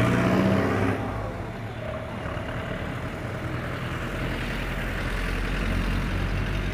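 Minibus engine accelerating as the bus pulls away, loudest in the first second, then settling into a steadier running note.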